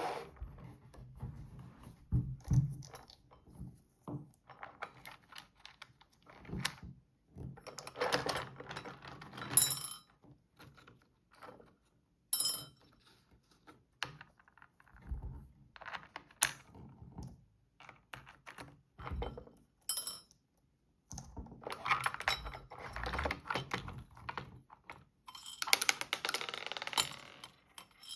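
Plastic toy playset being handled: irregular clicks, knocks and light rattles, with a few longer spells of rattling clatter.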